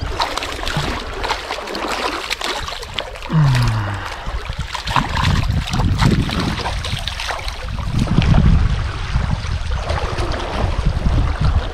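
Trout river water rushing and splashing, with low rumbling buffets and irregular short splashes throughout.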